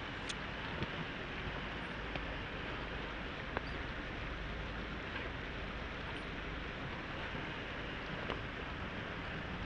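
A 1/24-scale RC crawler working over rocky ground: a steady hiss with a few small clicks and ticks scattered through it.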